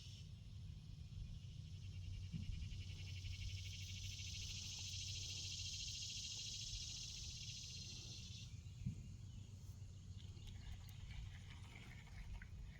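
A high-pitched, rapidly pulsing insect trill that stops abruptly about eight and a half seconds in, over a faint steady low hum. There is one light knock shortly after the trill stops.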